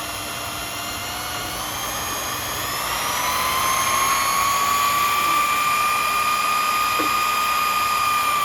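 Motor of a restored Sherline/Craftsman micro lathe running up to speed: a high whine that rises in pitch over the first few seconds, then holds steady.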